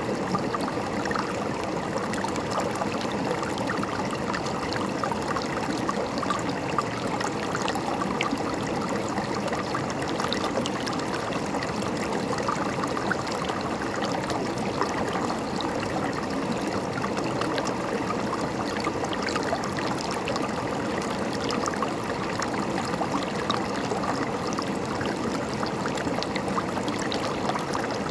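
A river or stream flowing and gurgling steadily over rocks.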